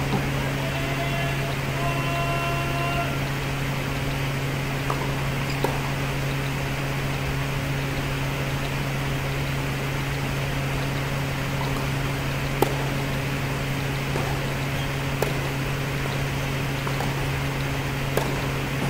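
Tennis ball struck by racket strings during a baseline rally, a sharp pock every few seconds, the loudest a little past halfway. A steady low hum of the hall's ventilation lies under it.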